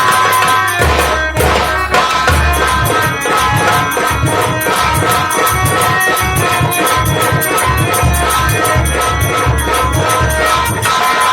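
Nautanki folk music ensemble playing: held melody notes over a dense beat of drum strokes and steady jingling percussion.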